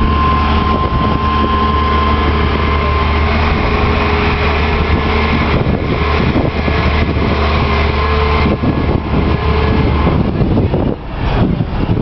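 A large engine running steadily, a low drone with a faint whine over it; most of the drone falls away about ten seconds in.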